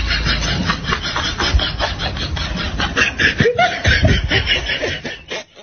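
People laughing: rapid, breathy giggling in quick repeated bursts, with a few higher pitched laughs a little past the middle, cut off suddenly near the end.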